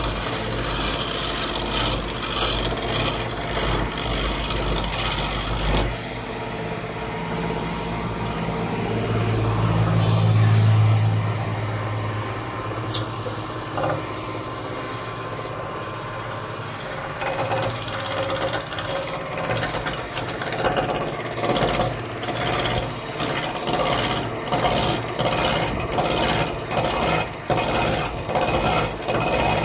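A hand chisel cutting a spinning wooden blank on a wood lathe, a rasping scrape of steel on wood. A low hum swells and fades around the middle. Near the end the cutting comes in regular strokes about a second apart.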